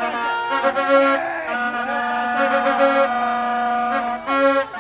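Music: a melody of long held notes in a reedy tone, repeating a short phrase.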